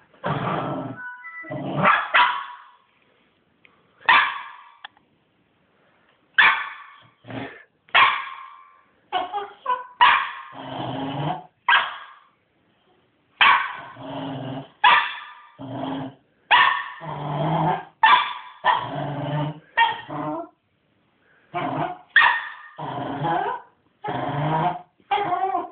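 Cairn Terrier puppy barking and growling in a long run of short bursts with brief pauses, excited and playful.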